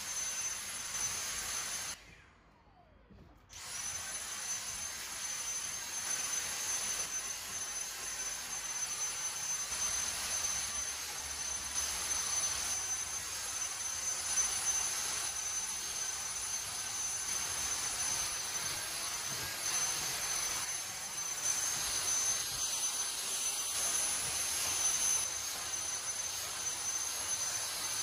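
Cordless stick vacuum running with a steady high-pitched motor whine as its nozzle is worked over sofa cushions and upholstery. The sound drops out for about a second and a half near the start, then runs again.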